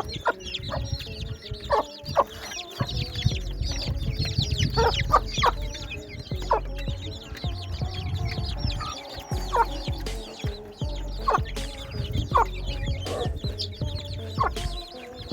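A brood of baby chicks peeping continuously in many quick, high chirps, with a hen's short clucks now and then. A low rumble runs underneath.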